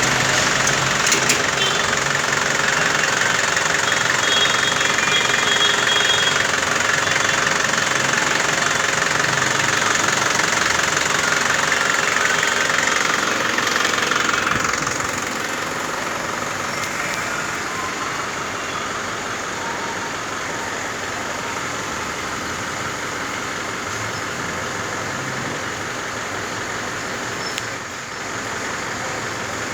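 A car engine running steadily, louder in the first half and a little quieter from about halfway on.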